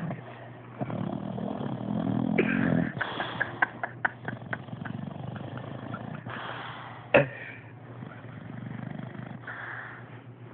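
Boxer dog snoring in slow, rumbling breaths, with scattered clicks and one sharp knock about seven seconds in.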